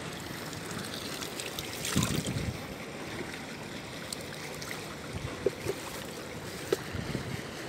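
Sea water lapping and washing against a concrete seawall, a steady wash with a few small knocks and clicks over it, the loudest a short bump about two seconds in.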